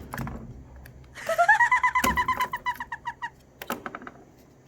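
High-pitched giggling laughter, a quick run of pulses that rises at first and then holds level for about two seconds, followed by a couple of sharp clicks.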